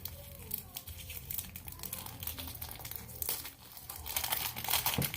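Plastic shrink-wrap crinkling and crackling as it is handled and pulled at to open a packaged speed cube, in irregular bursts, busier near the end.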